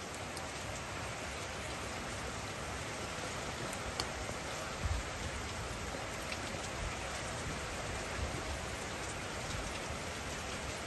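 A steady hiss, like rain falling, with a few faint ticks and a soft low thump about five seconds in.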